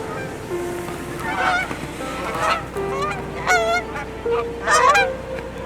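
Canada geese honking in several short bursts of calls, the loudest a little before the end, over steady held notes of background music.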